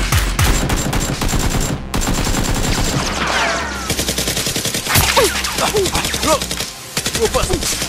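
Rapid automatic gunfire, a fast unbroken string of shots from more than one gun, with brief falling whistles scattered through it. The gunfire is edited in to stand for the Nerf blasters being fired in the fight.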